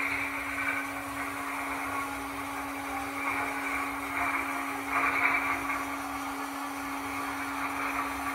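Model railway turntable turning under a gauge 1 locomotive: a small electric drive motor whirring steadily over a constant low hum, swelling slightly four to five seconds in.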